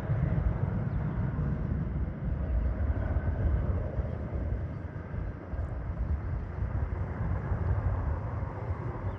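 Jet airliner engines giving a steady low rumble with a faint whine, easing off slightly midway.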